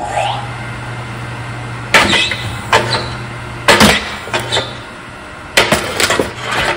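Electric kinetic log splitter (Forestwest BM11056, 2 HP motor driving a flywheel) running with a steady hum, broken by several loud knocks and cracks as its ram is driven against a big hardwood log. Near the end comes a cluster of heavy knocks as the log tips off the machine, and the hum dies away.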